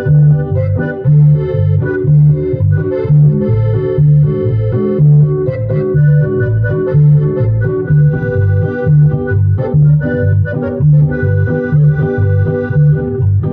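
Instrumental music led by an electronic keyboard on an organ sound, holding chords over a steady pulsing bass beat.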